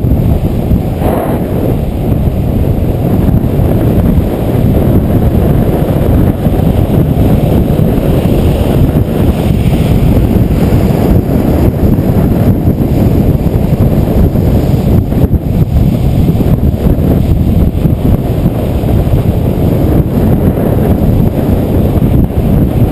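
Strong wind buffeting a helmet-mounted camera's microphone at downhill skateboarding speed: a loud, steady low rush.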